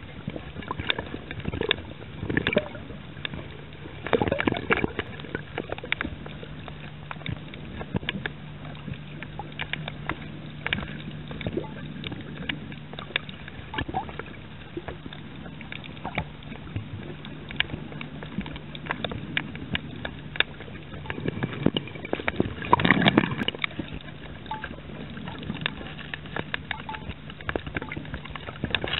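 Underwater sound on a coral reef: a steady low hum of a boat engine carried through the water, with scattered clicks and crackles throughout. A few louder whooshing surges of water come through, the strongest about 23 seconds in.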